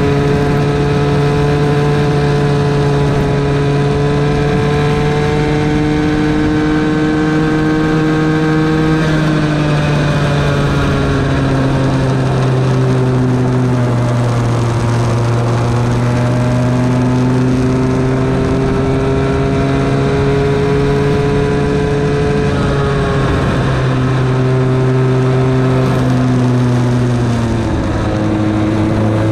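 Bambino go-kart engine heard from onboard, running hard throughout. Its note climbs slowly along the straights and falls away for the corners, about a third of the way in and twice more near the end.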